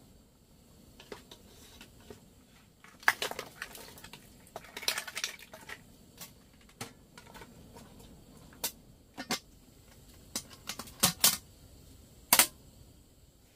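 Irregular sharp crunches and snaps of snow-covered twigs and brush, some in quick clusters and the loudest near the end.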